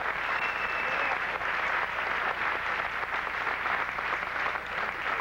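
Crowd applauding steadily, many hands clapping at once.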